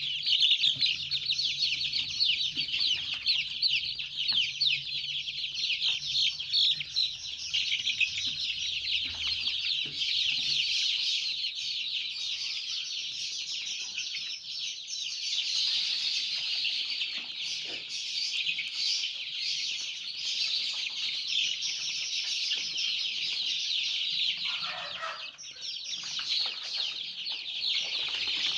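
A flock of 19-day-old ayam kampung super (Joper) chicks peeping without pause, a dense chorus of high-pitched chirps.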